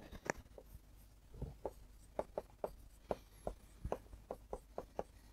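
Pen tip tapping and scratching on an interactive display screen while handwriting: a string of faint, short, uneven clicks.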